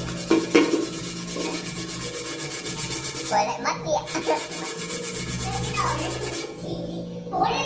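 A hand rubbing and scrubbing over a rubber tyre: a steady scraping rub, broken briefly near the middle.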